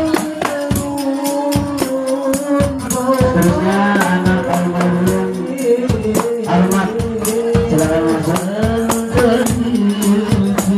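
Devotional singing through a microphone, accompanied by rebana frame drums beating a fast, steady rhythm with jingles, in the style of Indonesian hadrah music.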